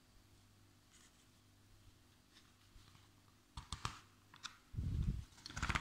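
A few light clicks and rustles of a glossy paper magazine being handled, with a low handling bump about five seconds in, after a quiet stretch of room tone.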